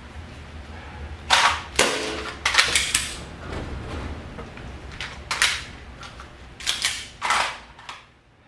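Airsoft gas blowback pistol firing a string of shots in irregular groups, sharp cracks with a short ring after each, as on a practical shooting course.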